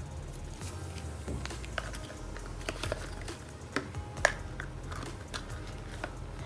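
Paper and cardboard packaging being handled, giving scattered light taps and rustles with a sharper click a little past four seconds in.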